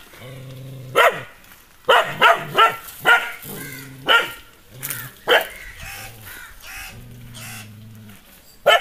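Nadan dog barking aggressively at strangers: about eight sharp barks, with a quick run of them two to three seconds in and a last one near the end.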